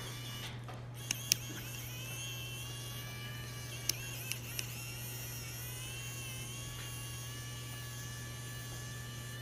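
Small electric precision screwdriver whining as it works at the tiny Phillips screws of a DJI Phantom 3 gimbal's yaw motor shell. A few light clicks of the bit on the screws come in the first half, and the whine stops at the end.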